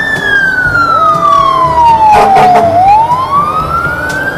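Fire-engine siren wailing: a slow falling sweep over about three seconds, then rising again near the end, with a short rattling noise about two seconds in.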